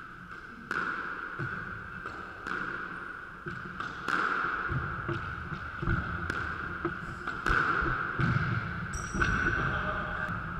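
Squash rally: the ball smacked by rackets and slapping off the walls and wooden floor, sharp cracks every second or so that ring in the enclosed court, with footfalls thudding on the floorboards. A shoe squeaks on the floor near the end.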